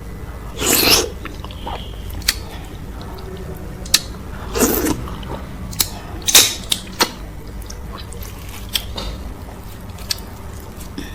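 Close-miked eating of slimy okra soup with fufu and cow foot: three loud wet slurps, about a second in, near the middle and a little later, with sharp mouth clicks while chewing in between.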